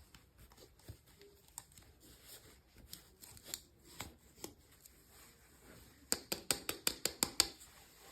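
Hands unboxing small plastic miniatures: scattered light clicks and taps, then a quick run of about ten sharp clicks near the end.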